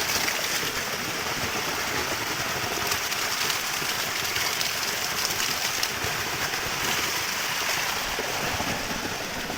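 Small waterfall pouring and splashing steadily, an even rushing of falling water.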